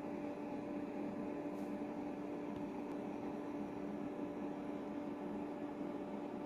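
Steady low electrical hum over a faint even hiss: room tone.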